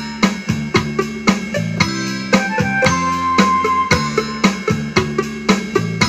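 Instrumental music: a drum kit keeping a steady beat under held keyboard chords.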